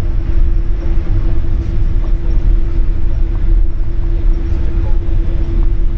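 Cabin noise inside a Boeing 787-8 airliner: a loud, steady low rumble with a constant droning hum.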